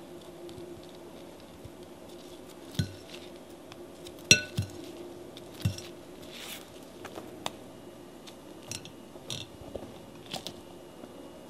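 Metal hand-mixer beaters being scraped clean with a silicone spatula in a glass mixing bowl. A few knocks and clinks of metal against glass ring out, the loudest about four seconds in, with a brief ring. Lighter ticks follow near the end as flour goes into a metal sieve over the bowl.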